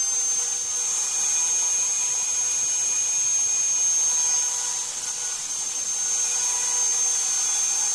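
Router spindle of an MPCNC running steadily with a high whine as its 1/4-inch end mill cuts a pocket in iroko hardwood, dipping slightly in loudness about five seconds in.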